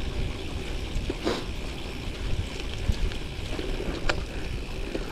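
Bicycle tyres rolling over a dry dirt forest trail, with a steady low rumble of wind and ride noise on the microphone and a couple of sharp clicks from the bike on the rough ground.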